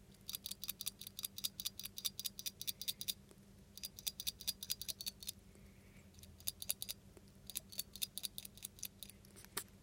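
Velveteen rex pet rat feeding, its mouth making rapid clicks about ten a second, in several runs of one to three seconds each.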